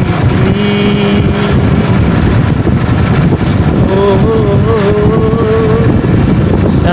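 Steady rumble of a motorcycle being ridden, its engine running under heavy wind buffeting on the microphone.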